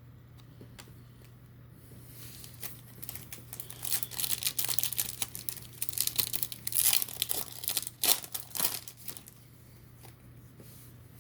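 Crinkling and rustling of trading-card pack wrapper as hockey cards are handled, in irregular bursts with sharp crackles, starting about two seconds in and dying away near nine seconds. A faint steady low hum lies underneath.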